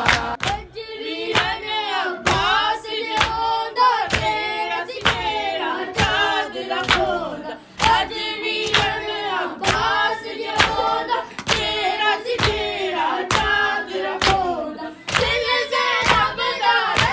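A group of voices chanting a noha, a Muharram mourning lament, together, with sharp hand strikes of matam (chest-beating) keeping a steady beat about twice a second.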